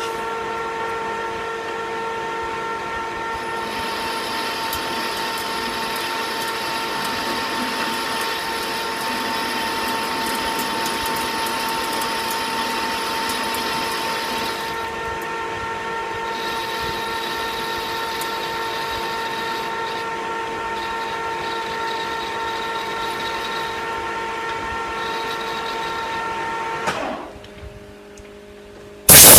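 Metal lathe running with a steady gear whine while a hand-fed cut is taken in 1018 cold-rolled steel, the cutting noise coming and going over the pass. Near the end the machine sound drops away, and a loud hiss starts just before the end.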